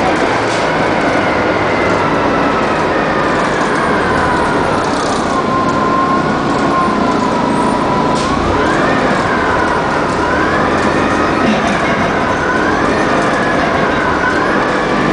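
Orion V transit bus with a CNG Detroit Diesel Series 50G engine and an Allison B400R automatic transmission, running under way. Its whine falls in pitch over the first eight seconds, then rises again with several short dips as the bus picks up speed.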